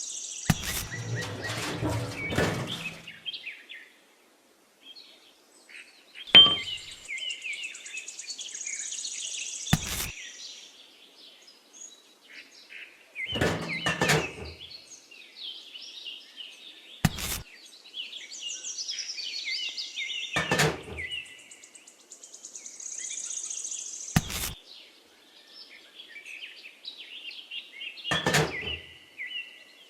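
Birds chirping, with a sharp knock every three to four seconds.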